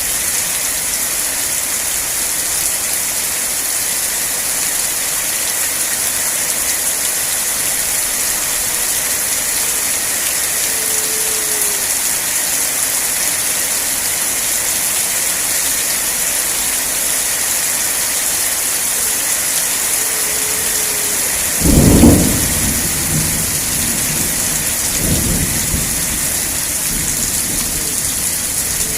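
Steady rain, with a sudden clap of thunder about two-thirds of the way through and a weaker rumble of thunder about three seconds later.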